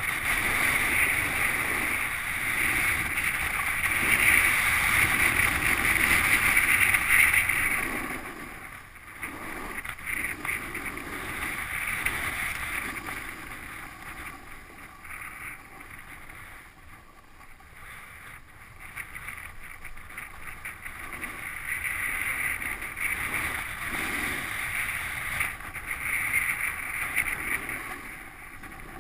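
Skis hissing and scraping over packed snow at speed, with wind rushing over the camera microphone. The rush is louder for the first several seconds, eases in the middle, and builds again near the end as speed picks up.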